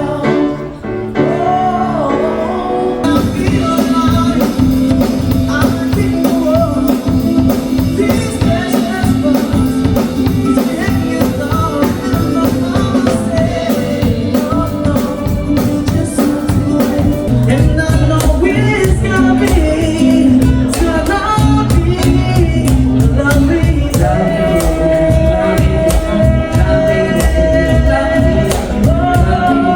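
A song with a lead vocal over a band. The accompaniment is sparse at first, and a full band with a steady drum beat comes in about three seconds in.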